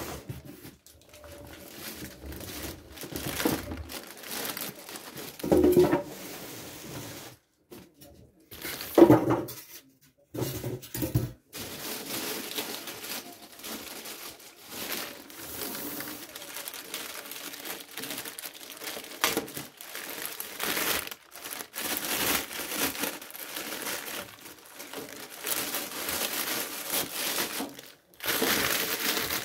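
Plastic wrapping bag crinkling and rustling around an AV receiver as it is handled and unwrapped. There are a few louder knocks in the first ten seconds as the unit and its box are moved.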